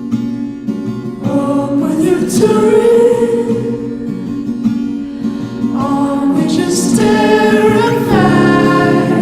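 Background song: a sung vocal line with held notes over acoustic guitar.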